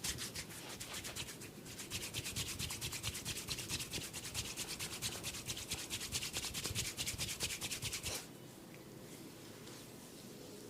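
Fast, even rubbing on a person's hair and scalp during a head massage, several strokes a second, stopping suddenly about eight seconds in.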